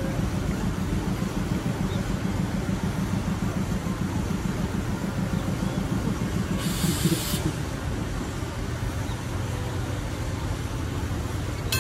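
Panama Canal electric towing locomotive ("mule") running on its track alongside the ship, a steady low rumble with fast pulsing. A short hiss comes about seven seconds in.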